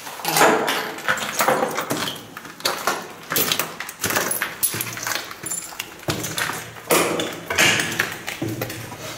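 Footsteps crunching and scuffing over rubble and dry leaves on a floor, with irregular clatters of loose debris.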